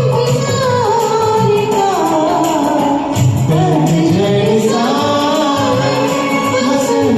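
A Hindi film song sung live over a karaoke backing track, one voice carrying a gliding, ornamented melody over the accompaniment.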